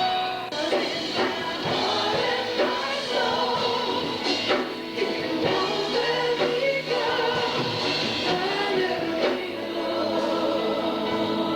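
Congregational worship music: a choir or worship team singing a gospel-style song over a band with drums.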